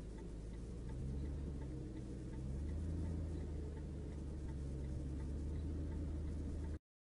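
Car cabin noise while driving on a highway: a low engine and road hum whose pitch steps up twice, with a light, regular ticking throughout. The sound cuts off abruptly near the end.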